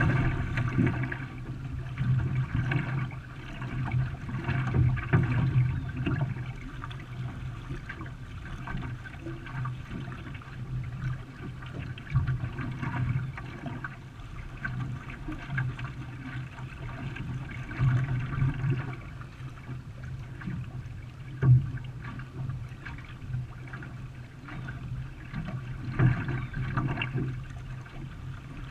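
Canoe paddle strokes splashing and gurgling in the water, swelling again and again over a steady low rumble. There is one sharp knock about two-thirds of the way through.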